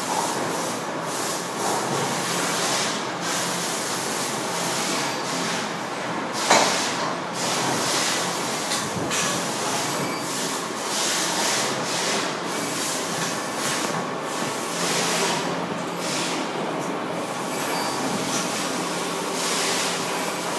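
Wood-Mizer bandsaw blade sharpening and setting machinery running, a steady busy mechanical noise with one sharp knock about six and a half seconds in.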